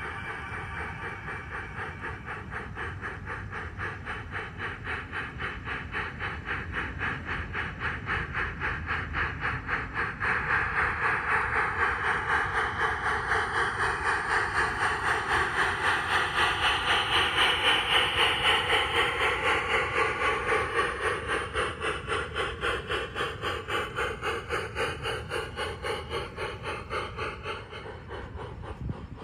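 LGB G-scale model steam locomotive with its passenger cars running along garden railway track, a steady quick rhythm of chuffs with a hiss, growing louder as the train comes close and passes, then fading away.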